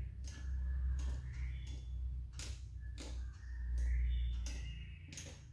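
Plastic beads of a soroban abacus clicking as fingers flick them up and down the rods, in quick uneven single clicks. A steady low hum underneath swells twice.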